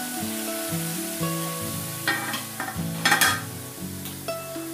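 Coconut milk sizzling in an aluminium wok as a metal ladle stirs it, cooking down until its oil separates out; the ladle knocks on the pan a few times about two seconds in. About three seconds in, the aluminium lid clatters onto the wok. Background music plays throughout.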